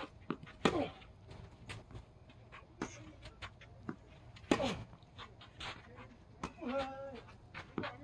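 Tennis rally: racket strikes and ball bounces on a hard court. The two loudest shots, about four seconds apart, each carry a short vocal sound that falls in pitch, like a player's grunt on the hit. A brief whining, voice-like call comes a little before the end.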